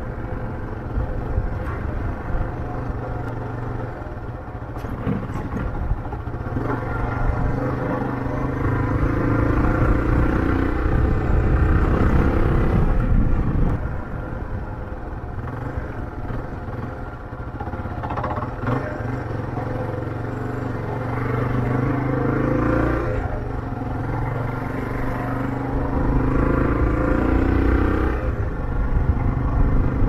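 Motorcycle engine heard from the rider's seat, pulling through the gears. Its pitch climbs for several seconds, then drops sharply at a shift about halfway through, climbs and drops again a few seconds later, and starts climbing once more near the end, over a steady low rumble.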